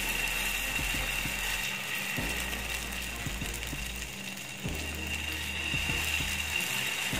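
Steel spoon scraping and clicking against a nonstick pan as it spreads thick wheat-flour chilla batter in circles, in short irregular strokes.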